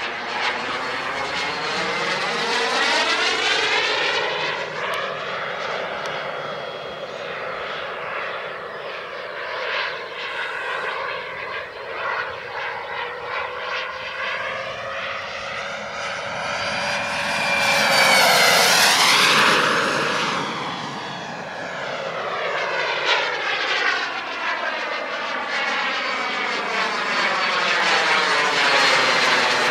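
Small jet turbine of a radio-controlled de Havilland Vampire model jet whining steadily as the plane flies around. The sound swells to its loudest as the plane passes close about two-thirds of the way through, its whine sliding down in pitch as it goes by.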